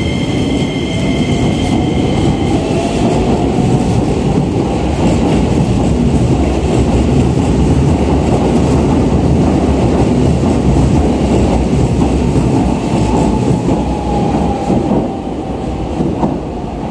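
Keisei 3050 series electric commuter train pulling out and running past close by: a loud, heavy rumble of wheels on rail, with a whine rising in pitch as it gathers speed. The noise falls away about fifteen seconds in as the last cars leave.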